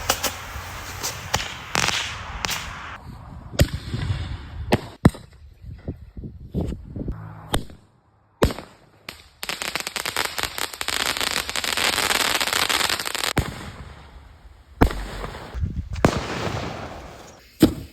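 Fireworks going off: a string of sharp bangs at irregular intervals, with a run of rapid crackling lasting about four seconds in the middle.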